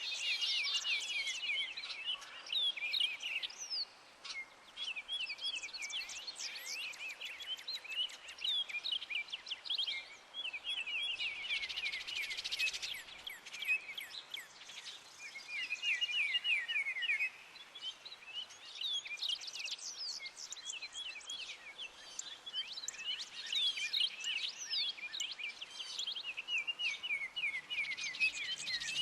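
Songbirds chirping and singing in short, rapid phrases almost without pause, including a fast even trill about halfway through, over a soft steady hiss of rain.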